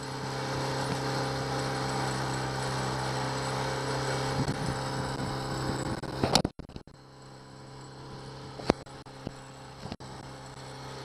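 1999 Honda 8 hp four-stroke kicker outboard running steadily at cruising speed, a low even hum. About six seconds in a sharp knock cuts through, after which the engine sounds quieter.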